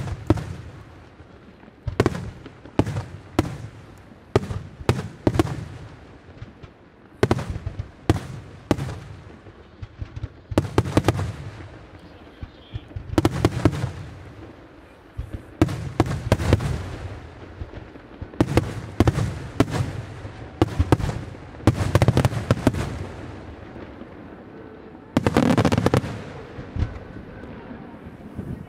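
Aerial firework shells bursting one after another in an irregular barrage of sharp bangs, each trailed by a low rumble. Near the end a dense, rapid run of bangs lasts about a second and a half.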